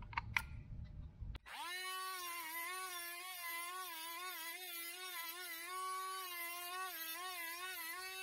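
Milwaukee rotary tool with a tungsten-grinder attachment, switched on with a click about a second and a half in, then running with a steady high whine while a tungsten electrode is sharpened in it. The pitch dips and wavers as the tungsten is pushed in and twisted against the wheel.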